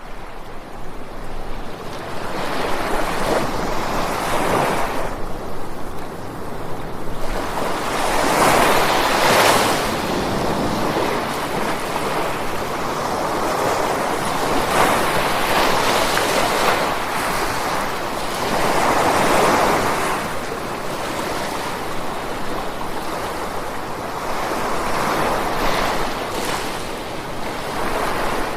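Sea waves breaking and washing on a rocky shore, a continuous surf rush that swells with each wave about every five seconds.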